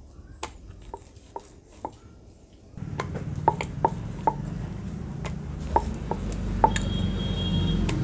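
Wooden rolling pin rolling out a puri on a round board: a steady low rumble sets in about three seconds in and carries on, with repeated light clicks and knocks over it. Before the rolling starts there are only scattered light clicks as the dough is handled on the board.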